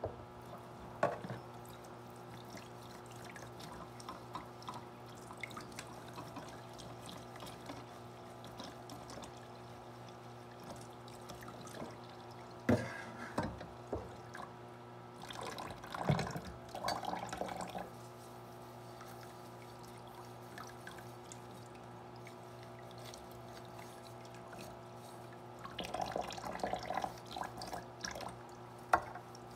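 Kitchen faucet running a thin stream of water into a sink while things are washed under it, with a few louder clatters and splashes.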